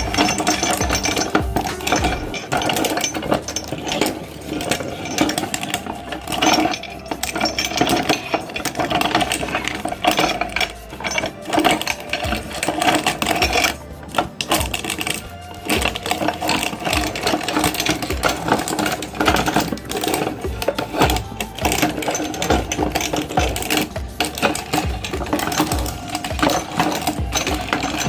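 Electric meat grinder running with a steady motor hum while crunching and crackling through ice cream cones, with many small cracks throughout.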